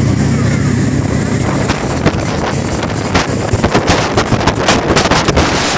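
Wind buffeting a phone microphone on an open ferry deck, over the steady low hum of the ferry's engines. The hum is plain for the first couple of seconds, then the wind grows choppier and louder, with rapid gusts on the microphone.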